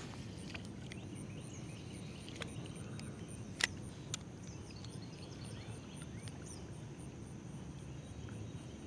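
Quiet lakeshore ambience: a low steady rumble, with an insect chirping in high, regular pulses about three a second. A few sharp clicks sound in the middle.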